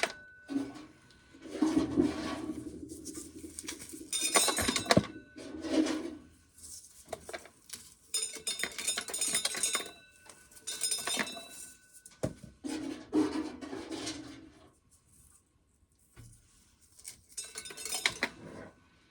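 Dry corn being shelled, the kernels clattering and clinking into a container in repeated bursts with short pauses between.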